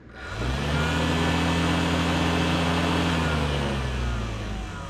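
American Hunter XDE deer feeder's motor spinning its metal spin plate through a timed 3-second feeding cycle: it spins up with a rising hum, runs steadily for about three seconds, then winds down with a falling pitch.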